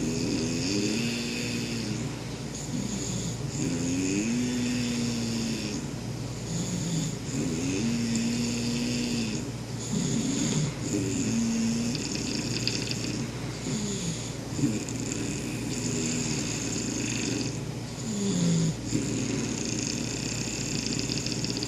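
Snoring, each breath carrying a short pitched tone that bends up or down, repeating every one to two seconds.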